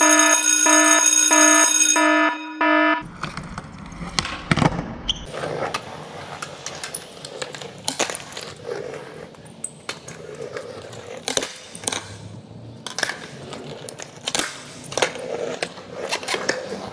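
A quick run of loud electronic beeps for the first three seconds, then a skateboarder trying fakie flips on stone paving. Sharp clacks come again and again as the tail pops and the board and wheels slap down on the paving, with wheels rolling over the stones in between.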